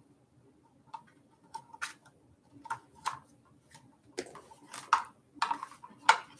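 Irregular light clicks and metal clinks of a hand tool working a fender bolt on a fat-tire ebike, sparse at first and coming thicker with a few short scrapes in the second half, as the bolt resists threading in.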